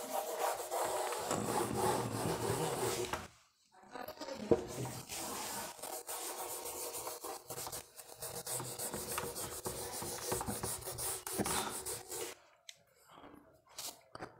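A whiteboard eraser rubbing back and forth across a whiteboard, wiping off marker writing. The scrubbing stops briefly about three and a half seconds in, resumes, and dies away near the end.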